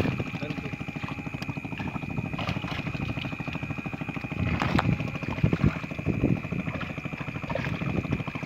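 Water splashing and sloshing as a large net is hauled through a pond. Under it runs a steady, pulsing low drone like a running engine and a continuous high tone.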